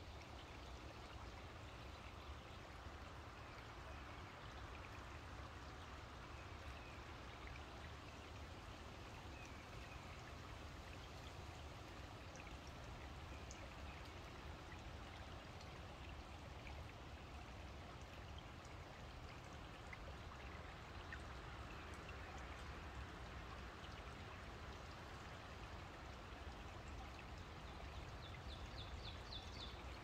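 Shallow woodland stream trickling steadily over stones, a soft even wash of flowing water. A short, quick run of high chirps sounds near the end.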